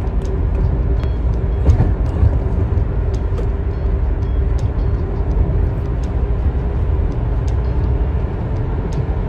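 Steady low rumble of a car, road and engine noise heard from inside the cabin, with a faint steady hum and a few scattered light clicks.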